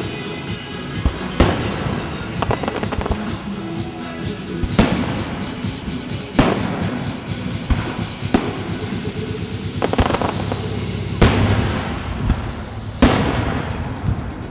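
Aerial fireworks shells bursting in sharp booms every second or two, with crackling in between, over background music.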